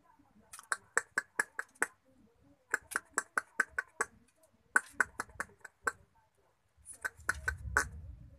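Squirrels in a wire cage making sharp, evenly spaced clicks, about five a second, in four quick runs of six to eight clicks each. A low rumble comes in near the end.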